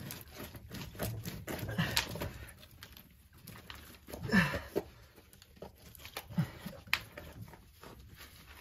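Broken concrete and gravel scraping and clicking as an old cast iron P-trap is wiggled loose by hand, with a few short grunts of effort.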